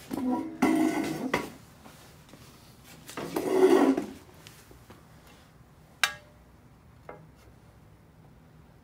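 Motorcycle chain guard being handled and offered up to the bike: two rattling, scraping bursts in the first four seconds, then a sharp tap about six seconds in and a lighter one a second later as it is set against the engine cover and frame.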